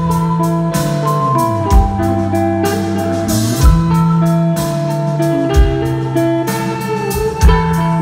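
Live rock band playing: electric guitar and a bass line, with a deep drum hit about every two seconds.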